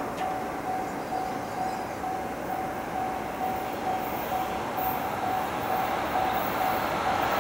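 Level-crossing warning bell ringing in a steady repeated ding, two to three strikes a second. Under it, an approaching freight train's rail rumble grows louder toward the end.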